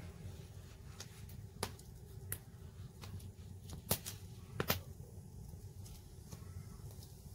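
Bread buns handled on a wooden cutting board: a few short, sharp clicks and taps, the loudest two about four and almost five seconds in, over a low steady rumble.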